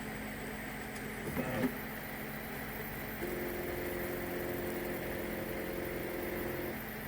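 Homebrew 3D printer running with a steady hum. About three seconds in, a stepper motor starts a whine that holds one pitch and stops shortly before the end.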